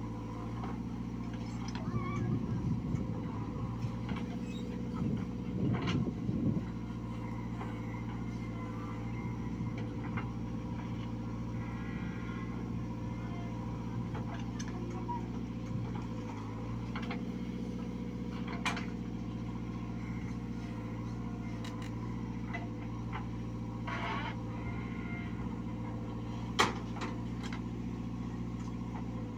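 JCB 3DX backhoe loader's diesel engine running steadily under load as the backhoe digs and dumps soil, with louder stretches of scraping and pouring soil a few seconds in. A single sharp clank near the end.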